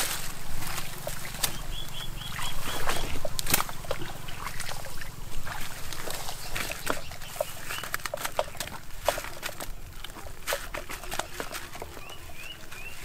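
Plastic bag crinkling in quick, irregular crackles as it is wrapped and tied tight around a PVC pipe joint to seal it against air and water leaks. A run of about six short high calls comes around two seconds in, and three short rising chirps come near the end.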